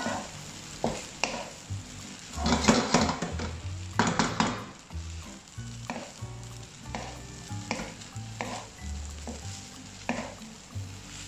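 Wooden spatula scraping and turning fried rice around a hot wok while the rice sizzles. The strokes come irregularly, the loudest flurries about two and a half and four seconds in.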